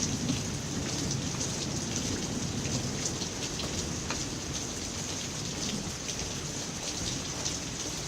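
Swollen, fast-running river rushing steadily, an even wash of churning water with a deep low rumble underneath and faint scattered splashes.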